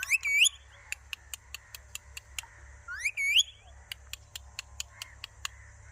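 Pet parrot giving two short rising whistles, one right at the start and another about three seconds later, with a run of quick sharp ticks between them.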